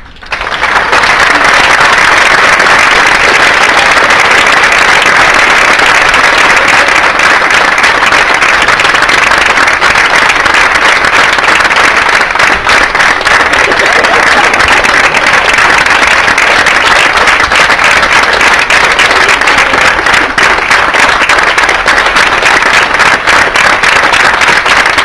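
Audience applauding, the clapping rising to full strength within about a second and then running on loud and steady.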